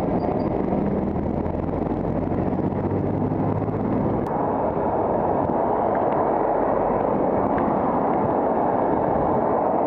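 Steady wind rush on the microphone of a moving bicycle, with the hum of an overtaking box lorry's engine fading out about four seconds in as the lorry pulls away ahead.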